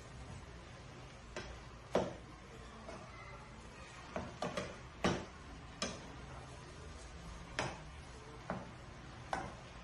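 Wooden spatula knocking against the side of a pot while stirring: about ten separate sharp clacks at uneven intervals.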